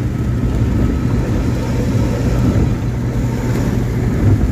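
Bus engine at highway speed with its deep, steady exhaust growl (the 'ngorok'), under road noise.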